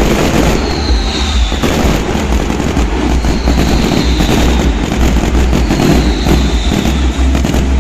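Fireworks display: dense crackling and repeated bangs over a heavy low rumble, with a few high whistles gliding down in pitch.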